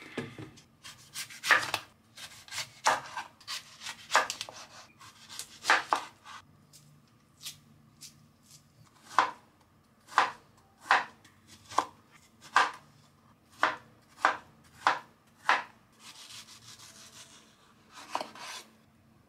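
A chef's knife cutting through dragon fruit and knocking on a wooden cutting board. The strokes are irregular at first, then settle into a steady chop about once a second, with a short scrape of the blade near the end.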